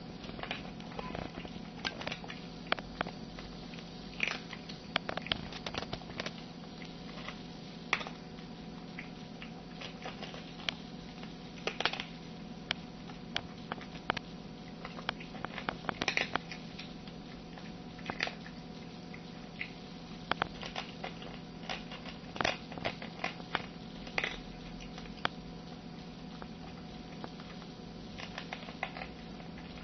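Tabby cat eating from a plastic bowl: irregular small clicks and smacks of chewing and licking, some in quick runs, over a steady low hum.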